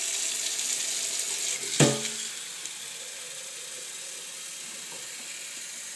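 Hot water from a kitchen tap pouring into a glass coffee pot over a stainless steel sink, a steady hiss that drops in level about two seconds in, just after a single short knock.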